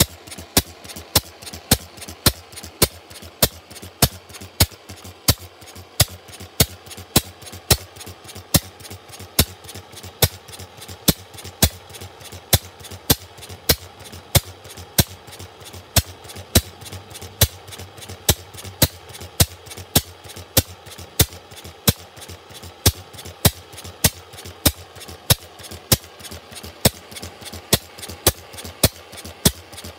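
One-third-scale replica Robinson oil engine, a hot-tube-ignition 'permanent lamp' engine burning paraffin, running steadily under its own power. It gives a regular beat of sharp exhaust cracks, about two a second, with lighter mechanical clicks between them.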